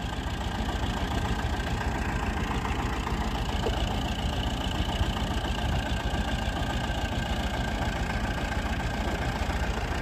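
Diesel farm tractor engine running steadily at idle, with no revving.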